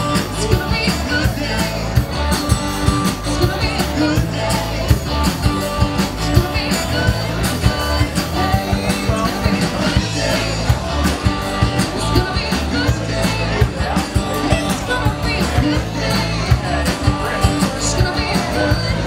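Live rock band playing through PA speakers: guitars over a drum kit's steady beat.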